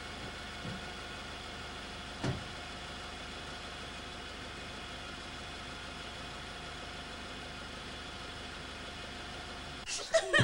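Toyota taxi's engine idling steadily, with a single thump about two seconds in. Near the end a run of louder, sharp knocks starts.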